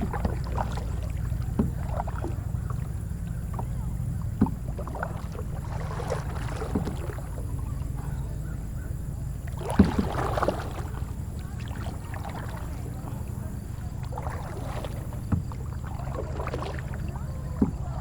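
Kayak paddle strokes dipping and splashing in river water every few seconds over a steady low rumble, with a few sharp knocks, the loudest about ten seconds in.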